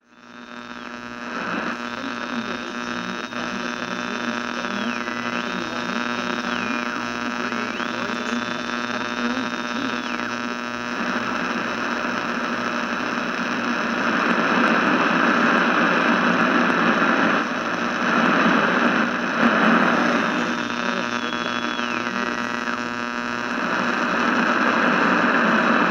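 Radio static: a steady hiss over a humming drone, with a high whistle that drops in pitch and comes back up several times in the first half. The hiss grows louder and rougher about halfway through.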